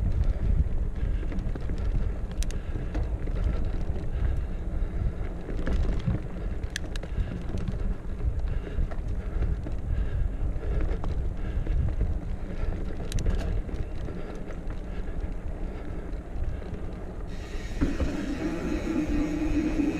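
2016 Specialized Stumpjumper Comp 6fattie mountain bike being ridden on a dirt trail: a steady low rumble of tyres on the trail and wind buffeting the microphone, with occasional sharp clicks. For the last couple of seconds a steady buzzing tone comes in over it.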